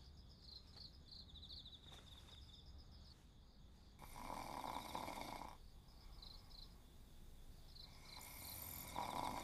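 Faint night ambience of crickets chirping in steady pulses, with two louder rushing sounds of about a second and a half each, about four and eight seconds in.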